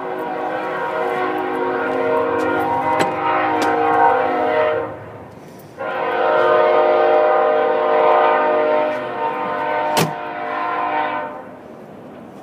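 A loud horn of several steady tones at once, sounding two long blasts of about five seconds each with a short break between; a sharp click comes about ten seconds in.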